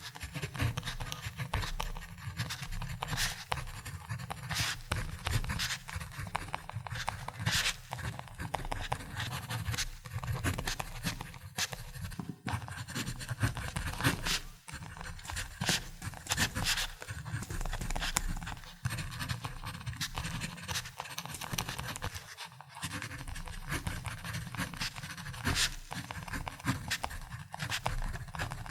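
Ballpoint pen writing on paper: a continuous scratching with frequent short strokes and taps.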